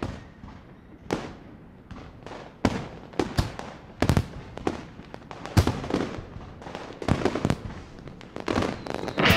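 Fireworks exploding: about a dozen sharp bangs at irregular intervals, each trailing off in a fading echo.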